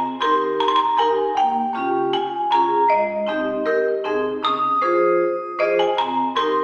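Background music: a melody and chords played on a marimba-like mallet instrument, the notes struck in a steady rhythm.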